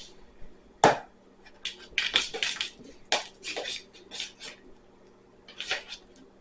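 A spoon stirring slime mixture in a bowl: irregular scraping and clinking strokes against the bowl, with one sharp knock about a second in, a busy run of strokes after it, and a pause before a last stroke near the end.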